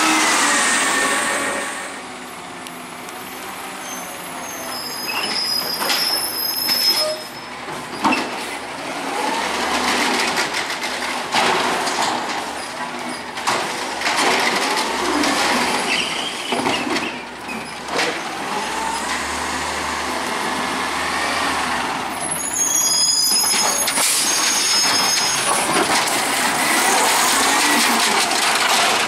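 Autocar ACX garbage truck with an Amrep automated side-loader at work: loud as it drives close past at the start, then its engine and hydraulics run, rising and falling as the arm lifts and tips recycling carts. Sharp knocks of the carts come now and then, with short high-pitched squeals twice, about five seconds in and again after twenty seconds.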